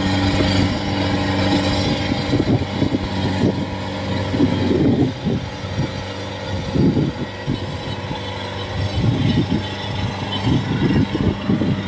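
Engine of a tracked rice combine harvester running steadily as the machine drives away, a constant low hum with irregular rumbling bursts over it.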